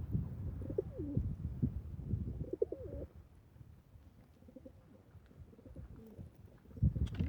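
Pigeons cooing: a few warbling, low coos in the first three seconds over a low rumble, then fainter coos. A louder, short noise comes near the end.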